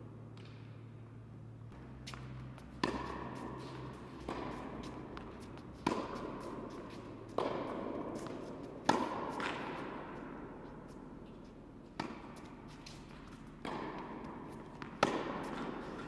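Tennis ball struck by rackets on an indoor hard court, about eight sharp hits, one roughly every second and a half, each echoing in the hall.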